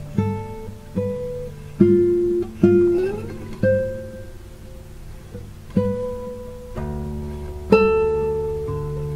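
Instrumental music: a slow acoustic guitar plucking single notes that ring out one after another over a held low note, with no singing.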